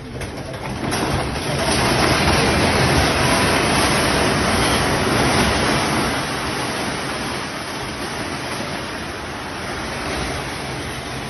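A landslide carrying a hillside building down the slope: a continuous rushing, crumbling noise of falling earth and concrete. It swells about a second in, is loudest for the next few seconds, then slowly eases.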